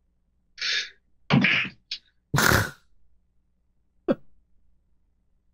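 A person's short, breathy non-speech vocal sounds: four quick bursts over about two seconds, followed by a single sharp click about four seconds in.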